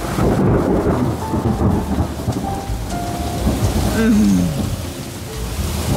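Thunder rumbling during a thunderstorm over steady rain falling on surfaces, easing off a little near the end.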